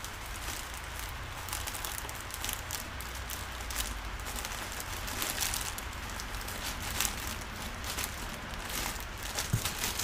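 Irregular light clicks and rustles, as of parts and packaging being handled close by, over a low steady hum.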